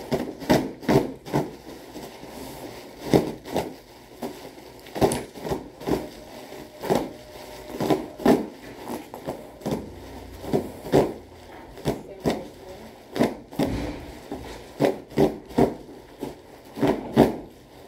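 Packaging being handled: irregular knocks and rustles of bubble wrap and cardboard, often two or three in quick succession.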